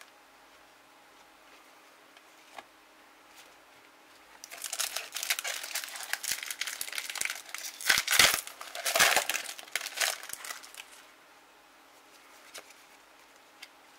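Foil trading-card pack crinkling and tearing as it is opened by hand, starting about four and a half seconds in, loudest just past the middle and stopping a few seconds before the end.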